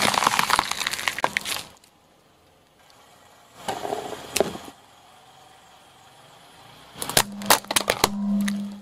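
A car tyre crushing things on asphalt. First a red bell pepper gives a dense crunching burst for nearly two seconds. A softer crackle follows mid-way, then near the end a red plastic scoop breaks in a quick run of sharp cracks and snaps over a low steady hum.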